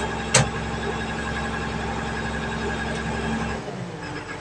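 A vehicle engine idles steadily, heard from inside the cab. There is one sharp click about a third of a second in, and the engine's low hum cuts off about three and a half seconds in.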